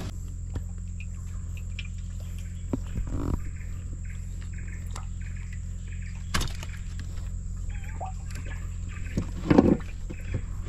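Short chirping calls repeating over a steady low hum, with a few knocks and thumps from handling fish in a wooden boat, the loudest near the end.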